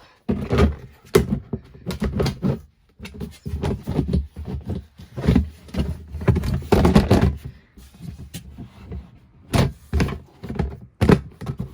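Rummaging: things being picked up, moved and set down, an irregular run of knocks, clatters and thumps.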